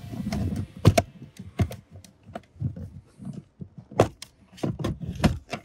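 Hard plastic trim clicking and knocking as the hood release handle and its footwell trim are unscrewed and worked loose by hand, with rustling of handling between the clicks. The sharpest clicks come about a second in and about four seconds in.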